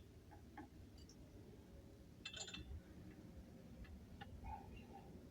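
Faint, scattered metallic clicks and clinks of hand tools on a wheel hub, with a brighter clink about two seconds in.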